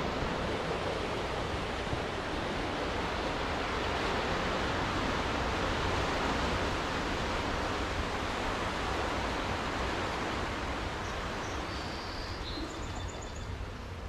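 Steady rush of ocean surf breaking on the shore. Near the end a few faint, high chirps come through, likely a small bird.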